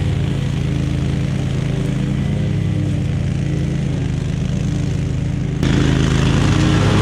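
Gasoline engine of the lawn equipment running steadily at working speed. Near the end the sound jumps suddenly louder, with more hiss on top.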